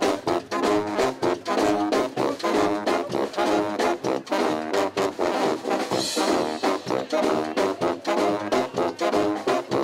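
Brass band playing: trombones, trumpets and saxophone in short, punchy repeated phrases.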